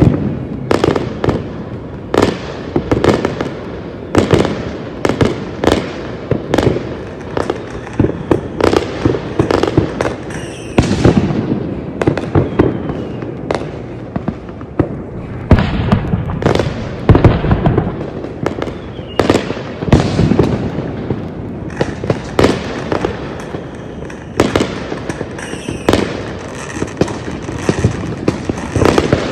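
Fireworks display: aerial shells bursting in a rapid, irregular series of loud bangs with crackling, many of them overlapping.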